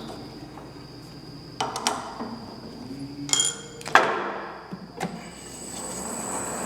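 Several sharp metallic clanks and knocks with a brief ringing, from steel tooling and parts being handled on a drilling machine set up to drill pin holes in a sawmill mandrel. About five seconds in, the machine's motor comes up with a thin high whine that grows louder.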